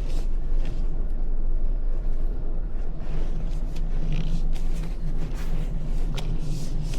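Steady low rumble of a car driving, heard from inside the cabin: engine and tyre road noise, with a few faint clicks.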